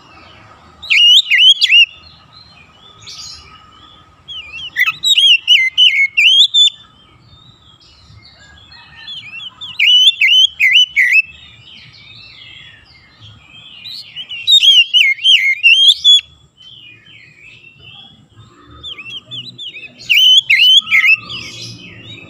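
Oriental magpie-robin singing five loud phrases of rapid, swooping whistled notes. Each phrase lasts one to two seconds, and they come about every four to five seconds.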